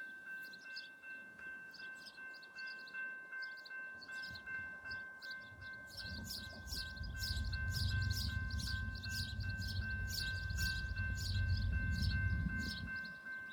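Grade-crossing warning bell ringing with rapid repeated strikes. From about six seconds in, the low rumble of an approaching train builds beneath it.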